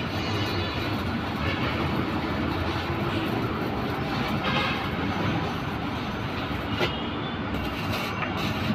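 Electric arc welding in progress: the arc gives a steady hiss, with one sharp pop about seven seconds in.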